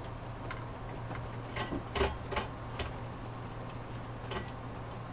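Irregular small clicks and taps of a Phillips screwdriver working the spring-loaded mounting screws of a CPU cooler, about seven in all, the loudest about two seconds in, over a steady low hum.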